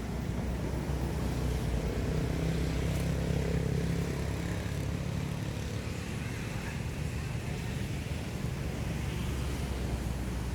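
A low, steady engine rumble, a little louder a few seconds in.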